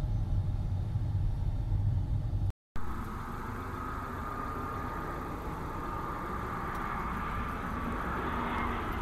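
A low, steady rumble inside a car cabin for the first couple of seconds. Then, after a cut, a jet airliner's engines running at a distance, a steady whine over a rushing noise that grows louder near the end.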